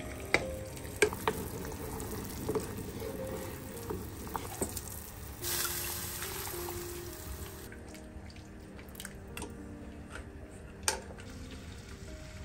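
Water boiling in a pot, with a few sharp knocks in the first second and a half. About five and a half seconds in, lettuce leaves are pressed into the boiling water for a quick blanch, and the bubbling grows louder for a couple of seconds. Soft background music with sustained notes underneath.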